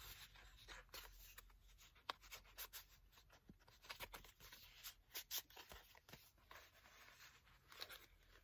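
Faint rustles and light taps of thick paper journaling cards being handled, slid against each other and laid onto a journal page, in scattered short clicks.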